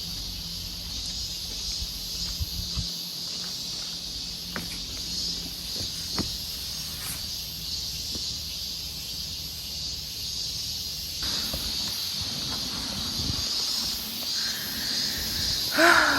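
Steady high-pitched chorus of insects droning, with a few faint clicks scattered through it.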